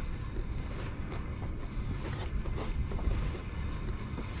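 Steady low rumble of a small fishing boat at sea, with wind on the microphone and a few light knocks.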